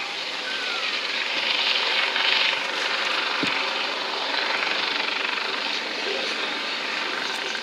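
US Coast Guard MH-65 Dolphin helicopter hovering low over the sea, its turbine and rotors making a steady rushing noise without a distinct blade beat.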